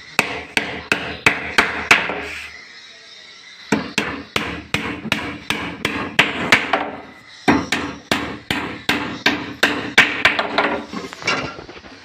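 Hammer driving nails into wood: runs of sharp, even blows about three a second, with a short pause twice.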